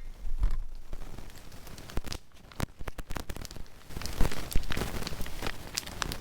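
Campfire crackling, with scattered sharp pops that come thicker in the last couple of seconds and some rustling.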